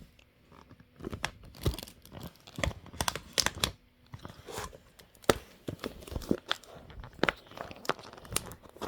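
Plastic crinkling with irregular clicks and knocks as a plastic water bottle and its drip-fitting parts are handled.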